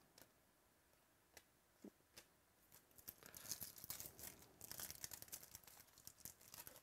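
A few faint clicks, then about three seconds in a foil trading-card pack wrapper is torn open by hand and crinkles for a few seconds.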